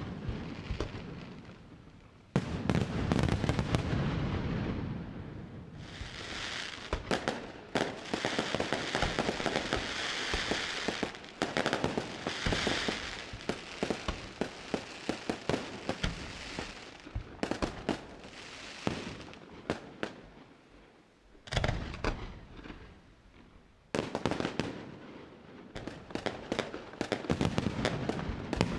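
Fireworks display: a rapid barrage of shell bursts and bangs, with a dense crackling from about six to thirteen seconds in and fresh loud volleys starting suddenly a couple of seconds in, past twenty seconds and again just after.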